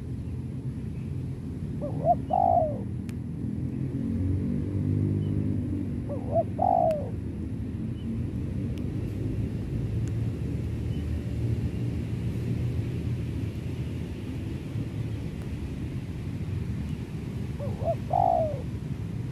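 Spotted dove cooing in short phrases, three times with long pauses between, over a steady low rumble.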